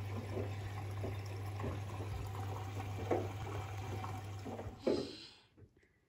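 Washing machine running: a steady low hum under water noise, swelling about every second and a half, then stopping abruptly about five seconds in.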